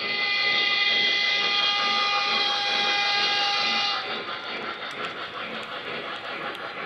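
Model steam locomotive's sound-system whistle blowing one long steady blast that cuts off about four seconds in, leaving the train's running noise.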